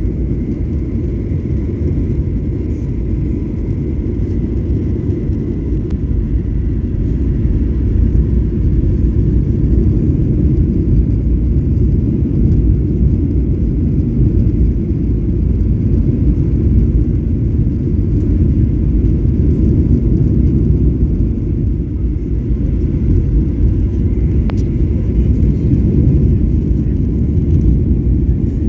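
Steady low rumble of an airliner's jet engines and airflow heard inside the passenger cabin during the approach and landing phase of the flight, growing slightly louder after about eight seconds.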